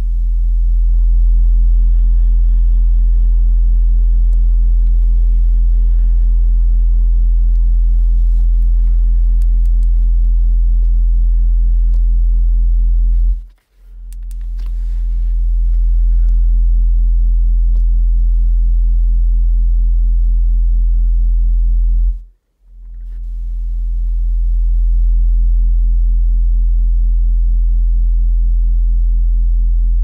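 Car-audio subwoofer system inside a truck cab playing a steady 42 Hz test tone very loud, about 117.7 dB on an SPL meter, with the amplifier's bass knob turned all the way up. The tone cuts out twice, about 13 and 22 seconds in, and swells back up over a couple of seconds each time as a new run starts.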